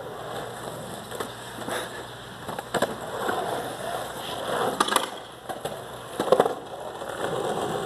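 Skateboard rolling on street pavement, its wheels rumbling, with several sharp clacks of the wooden deck striking the ground.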